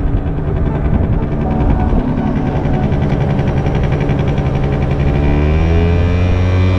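Genuine Roughhouse 50 scooter's 49cc two-stroke engine running under way, its revs rising about five seconds in.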